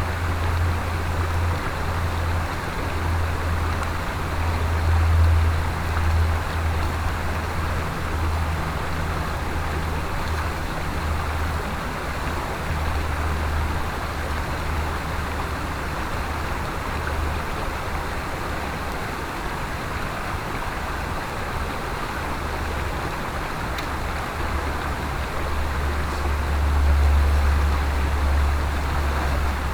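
A mountain stream flowing steadily, as an even rushing of water. Under it is a low rumble that swells and fades, loudest about five seconds in and again near the end.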